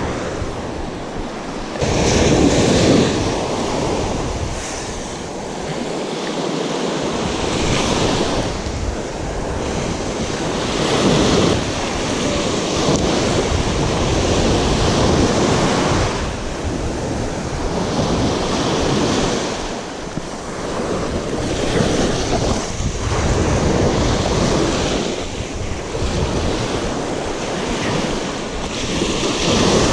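Surf breaking and washing up a sandy beach, swelling every few seconds. Wind buffets the microphone throughout.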